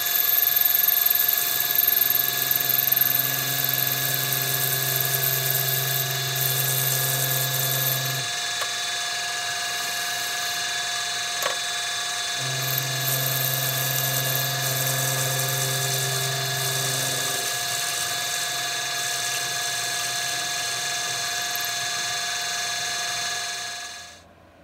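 Small metal lathe running with a steady motor whine while it turns a threaded brass part. A deeper hum comes in twice for several seconds, and the sound cuts off sharply near the end.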